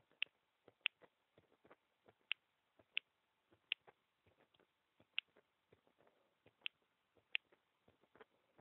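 Heartbeat picked up by a microphone pressed against the bare chest: faint, sharp clicks, loosely in pairs, every second and a half or so.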